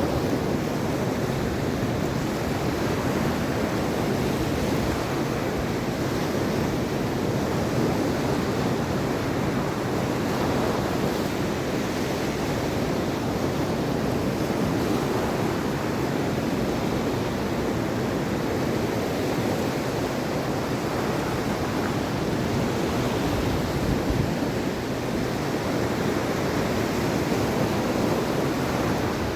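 Mediterranean Sea waves breaking and washing on the shore, a steady rush of surf with gentle swells, and some wind on the microphone.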